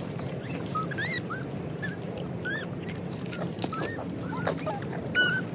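Macaque monkeys giving many short, high squeaks and chirps, each rising then falling in pitch, several a second, over a steady low background noise.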